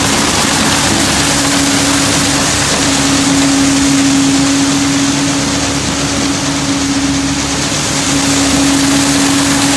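AGI Westfield grain conveyor, driven by a tractor's hydraulics, running close up while loading corn into a semi trailer: a steady hum under a loud, even rushing sound.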